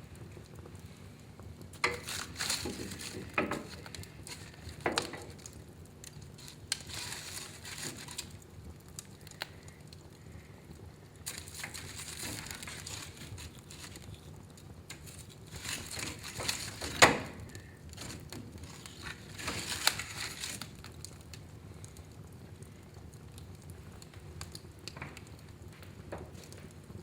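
Fire burning in a fireplace: irregular crackling and sharp pops, with short stretches of hissing, the loudest pop about two-thirds of the way through.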